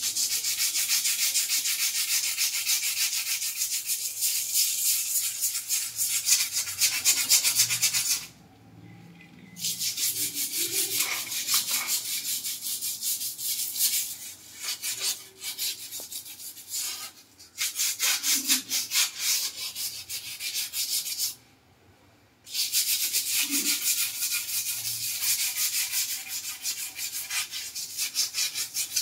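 Stained ceramic wall tiles scrubbed by hand with a small scrubber in quick back-and-forth strokes, a high, scratchy rubbing. It stops briefly twice, about a third of the way in and again about three quarters of the way through.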